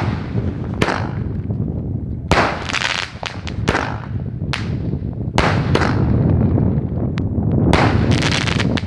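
Sky shot aerial fireworks bursting one after another, sharp bangs about a second apart, some trailing off into crackling, with a dense spell of crackle near the end over a steady low rumble.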